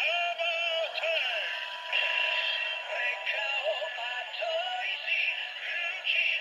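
Kamen Rider Zi-O Ziku Driver toy with the Ryuki Survive Ridewatch playing its electronic transformation sound: a synthesized melodic jingle of sliding tones. It sounds thin, with no bass.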